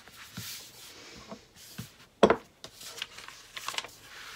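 Handling noise at a sewing table: hands smoothing a strap piece of non-fabric material on a cutting mat and paper pattern pieces rustling as they are picked up, with small clicks and one sharp knock about two seconds in.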